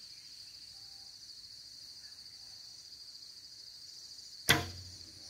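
Recurve bow shot: a single sharp snap of the bowstring about four and a half seconds in as the arrow is released. A steady high insect buzz from crickets runs underneath.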